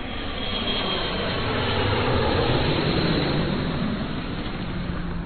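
Intro title-card sound effect: a sustained rushing, rumbling noise that swells a little toward the middle.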